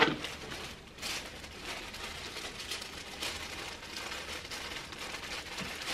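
Tissue paper rustling and crinkling with small crackles as it is handled and carefully pulled open.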